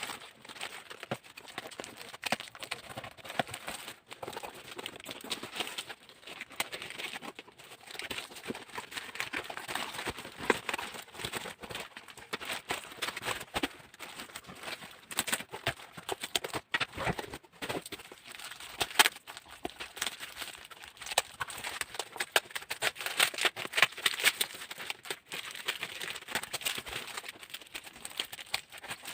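Packaging being handled and opened: irregular rustling, crinkling and light knocks.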